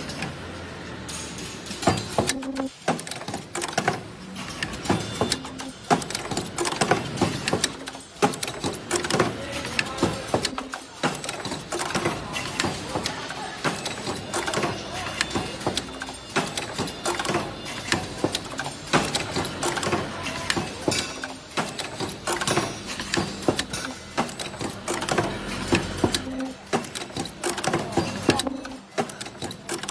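Automatic ultrasonic mask ear-loop welding machine running, its pneumatic cylinders and feed mechanism clacking continuously in a fast, uneven stream of clicks and knocks.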